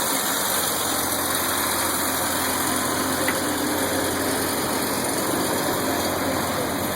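A car engine idling steadily, with no change in speed.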